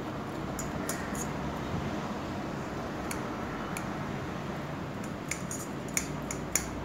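Metal fork clinking and scraping against a stainless steel bowl while vermicelli is spread and pressed in it: scattered sharp clicks, the loudest two near the end, over a steady background noise.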